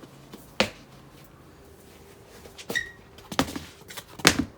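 Several separate knocks and bumps, about four in all, with a brief high squeak a little past the middle, over a faint steady hum in a small room.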